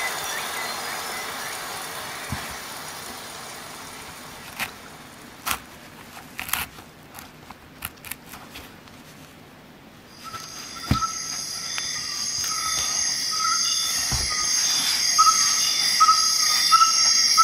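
Several sharp clicks and taps from handling a multitool and its nylon sheaths. About ten seconds in, a high-pitched chirping trill fades in and grows louder, its short chirps repeating at a regular pace.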